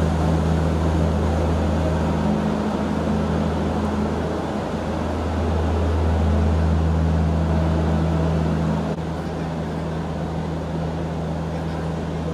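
Steady low engine hum from a standing passenger train, with a slight drop in level about nine seconds in.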